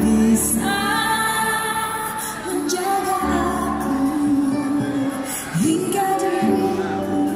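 A woman singing live into a microphone with a band accompanying her, amplified in a large hall, her voice holding long notes.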